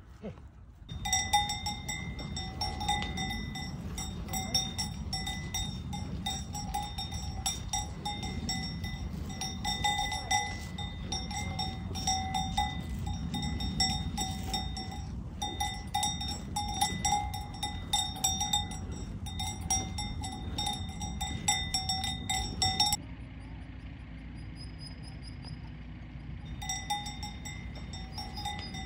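A cow's neck bell clanking irregularly as the cow grazes and moves, with a ringing tone and rapid uneven strikes. The ringing cuts off abruptly about 23 seconds in and comes back fainter a few seconds before the end.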